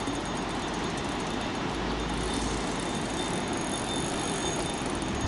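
Steady rushing wind noise buffeting the microphone, with gusts coming and going in the low end.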